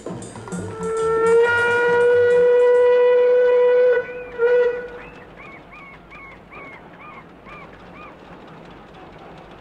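A loud, steady whistle blast lasting about three seconds, then a short second blast, followed by a run of about ten quick high chirping calls, two or three a second.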